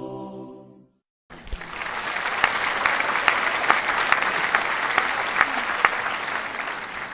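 A crowd applauding: dense clapping that starts about a second in, swells, and tapers off near the end.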